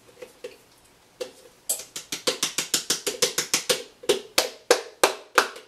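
Hand-operated flour sifter being worked over a bowl of flour, its mechanism clicking in a quick rattling run that starts about a second and a half in, at about six clicks a second, then slows to about three a second near the end.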